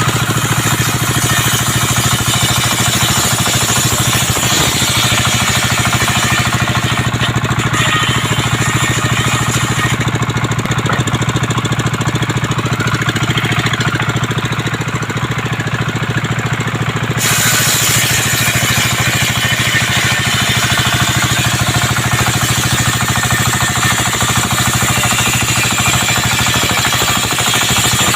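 Engine-driven circular sawmill running steadily while sawing coconut wood, a constant low engine hum under a loud hiss from the blade. The high part of the hiss fades for several seconds in the middle, then returns suddenly about two-thirds of the way through.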